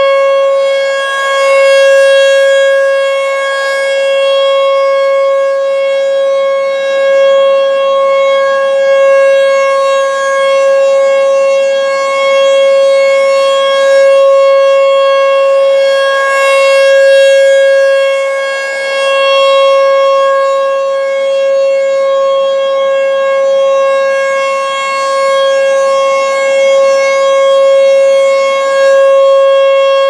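American Signal T-128 outdoor warning siren sounding a steady, unwavering tone during a tornado siren test. Its horn rotates, so the loudness swells and eases every few seconds as it sweeps past.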